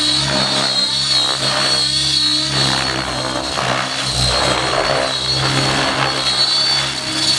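Radio-controlled 3D stunt helicopter flying aerobatics: a steady rotor hum with a high whine that wavers slightly in pitch as it manoeuvres.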